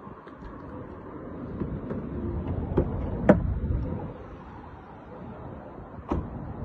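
A vehicle's low rumble swells and fades as it passes in the street, with a few sharp knocks, the loudest about three seconds in and another near the end.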